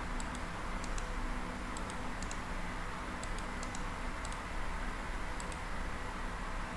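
Computer mouse clicking: about eight quick double clicks, irregularly spaced, over a steady hum and hiss.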